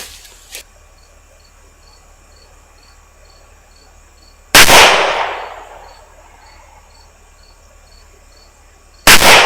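Two shots from a .40-calibre handgun, about four and a half seconds apart, each a sharp loud report that trails off in echo over about a second. Insects chirp faintly in a steady rhythm between the shots.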